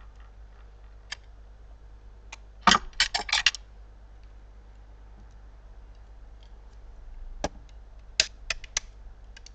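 Sharp clicks and ticks from a Product Enterprise Eagle model's frame being worked at with a blade to prise it apart: a few single clicks, then a cluster about three seconds in and another near the end. The parts are stuck and not coming apart.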